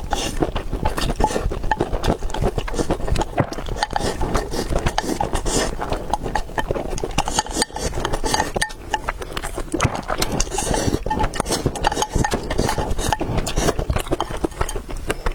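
Close-miked eating sounds: chewing, with a steady, dense run of small clicks and smacks.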